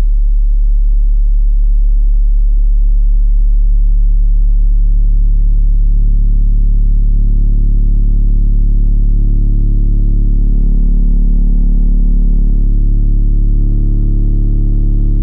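B2 Audio Rampage 6.5-inch subwoofer in a rear-loaded horn enclosure playing a steady 36 Hz test tone, being slowly turned up toward its maximum output. From about six seconds in, a buzzier, higher layer builds over the deep tone and shifts a little as the level nears the top.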